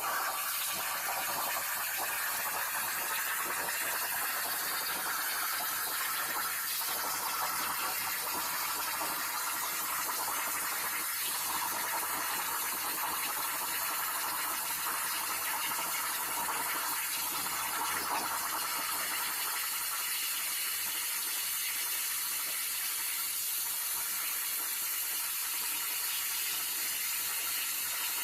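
CNC plasma cutter's torch arc cutting metal: a steady hiss that holds level throughout.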